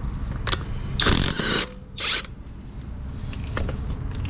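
Ratcheting hand tool working on the wheel during a tire change: two short rasping bursts of clicking, about a second in and again at two seconds, with a few lighter clicks after.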